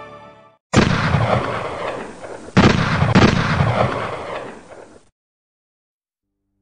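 Gunfire sound effect: three loud shots, the first about a second in and two more close together about two and a half and three seconds in, each trailing off in a long rolling echo that dies away.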